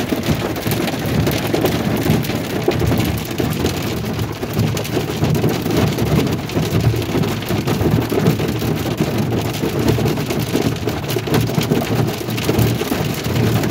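Heavy rain drumming steadily on the roof and windows of a pickup truck, heard from inside the cab as a dense, loud patter.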